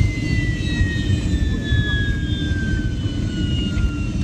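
Jet airliner engines running: a steady low rumble with a high whine above it that falls slowly in pitch, as the engines spool down.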